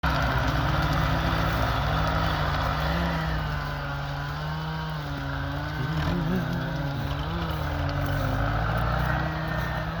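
MTZ tractor's diesel engine running hard under load, its pitch wavering up and down as the tractor slips with its wheels spinning.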